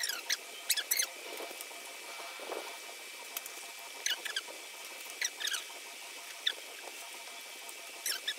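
Short, high squeaky chirps, each falling quickly in pitch, coming in irregular clusters of two to four every second or so, over a faint steady high whine.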